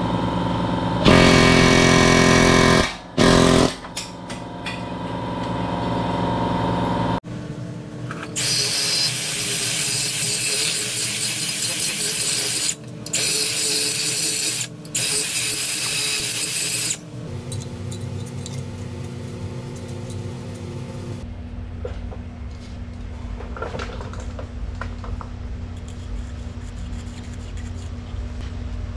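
Small cordless rotary grinding tool running at high speed with a steady high-pitched whine, grinding burrs out of the steel bore of a control arm's bushing eye. It stops briefly twice and cuts off about two-thirds of the way through. Near the start there is a shorter, louder burst of power-tool noise.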